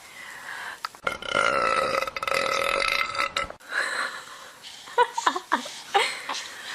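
A person belches once, a long drawn-out burp lasting about two and a half seconds and starting about a second in. A few short, sharp voice sounds follow near the end.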